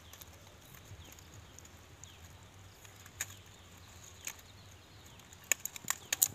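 Quiet outdoor background with a few sharp clicks and snaps from dry palm-leaf kindling being lit with a lighter, several coming close together near the end as the leaves catch.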